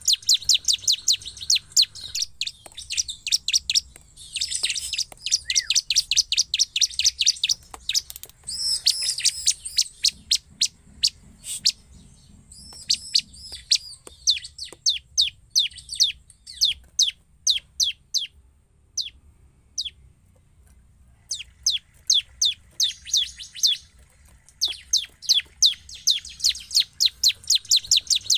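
Bar-winged prinia (ciblek) in full song: long runs of sharp, high chipping notes, each a quick downward slur, repeated about five times a second. The runs come in bouts with a break of a few seconds past the middle.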